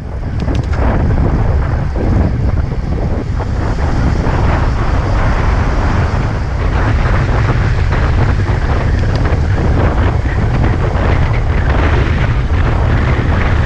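Wind buffeting the microphone of a GoPro Hero 5 Session mounted on a road bike riding at speed: a loud, steady rush, heaviest in the low rumble.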